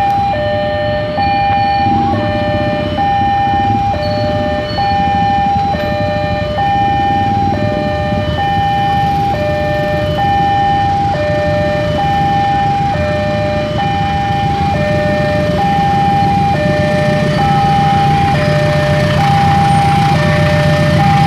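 Railway level-crossing warning alarm sounding continuously: an electronic two-tone signal alternating between a higher and a lower pitch about once a second, warning that a train is coming. A low engine rumble builds underneath in the last few seconds.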